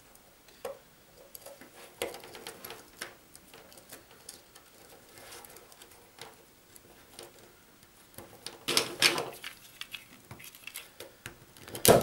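Small clicks and rustles of telephone wires being handled and seated into the plastic IDC terminal slots of a BT78A junction box, with a louder burst of clicking and scraping about nine seconds in.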